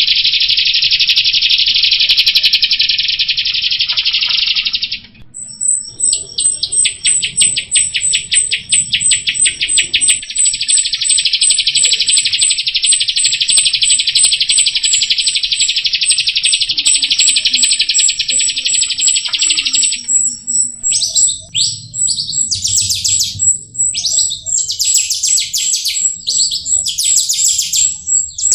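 Jalak rio (rio-rio) starling singing: long, fast rattling trills with a thin high note repeated rapidly above them, the trill breaking off briefly about 5 seconds in and giving way to shorter separate chirps after about 20 seconds.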